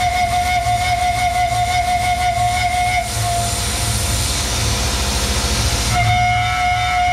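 Tormach 1100M CNC mill cutting aluminum: a steady high whine from the spindle and cutter over a low pulsing hum. About three seconds in, the whine drops out and a hiss takes over for about three seconds, then the whine comes back.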